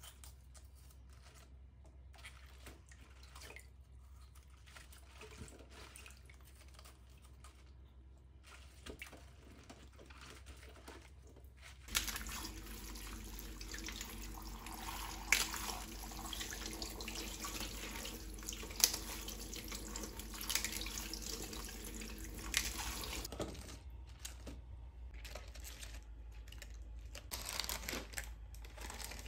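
Bok choy being washed by hand in a stainless steel bowl of water in a sink: water sloshing and splashing as the leaves are rubbed and swished, faint at first and louder for about ten seconds in the middle, with a few sharp clicks.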